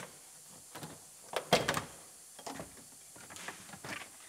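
Plastic trim covers on a car seat base being unclipped and pulled off: a run of scattered clicks and knocks, the loudest a quick cluster about a second and a half in.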